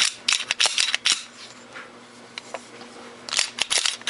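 Quick metallic clicks and clacks of a Tokarev TT-33 pistol's action being worked by hand. They come in two bursts, one in the first second and another from about three seconds in, as the freshly reassembled pistol is checked for function.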